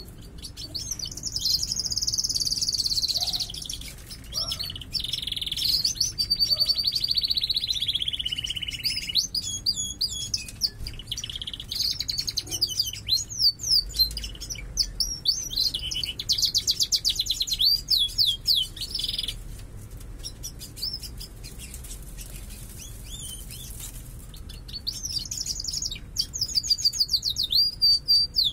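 Caged domestic canaries singing: long phrases of rapid trills and rolls, with a quieter patch of scattered notes past the middle. It is the strong song of birds still in breeding condition.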